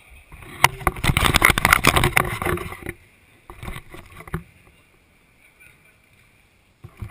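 Sounds of an indoor football game on artificial turf, heard from pitch level: a couple of seconds of loud scuffling, thuds and player voices, some fainter knocks after, and a sudden loud noise just at the end as a player kicks the ball close by.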